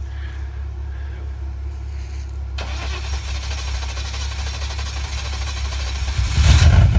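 Off-road rig's engine running low and steady; a steady hiss comes in abruptly about a third of the way through. Near the end the engine gets much louder and starts to rev.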